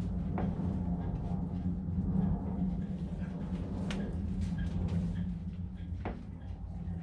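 A few sharp clicks and knocks of hands and tools on the raw-water pump and its hose fittings as a hose is worked loose from the pump, over a steady low hum.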